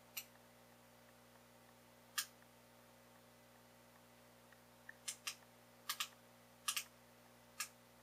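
Number dials of a four-digit combination cable bike lock being turned by hand as a new code is dialed in, giving about nine sharp, scattered clicks, most of them in the second half and several in quick pairs.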